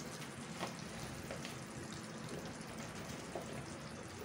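Spiced chana dal gravy sizzling steadily in a kadhai, with a few soft clicks as raw pumpkin cubes are dropped into the pan by hand.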